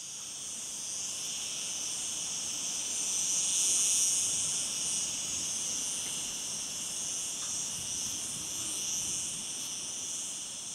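Steady chorus of insects chirring: an even, high buzz that swells a little around four seconds in.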